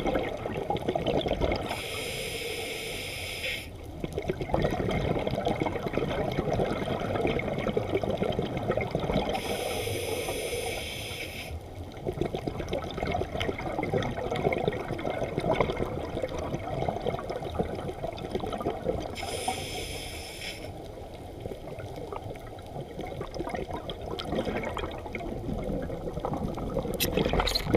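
Muffled underwater sound heard through a camera housing: a steady watery wash with faint crackling. Three bursts of high hiss, each about two seconds long and roughly nine seconds apart, which are a diver's breaths.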